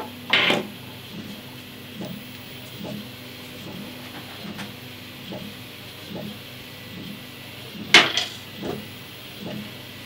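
Handling noise from work on an open PC case: a brief rustle just after the start and one sharp clack about eight seconds in. A few faint ticks and a steady low hum run underneath.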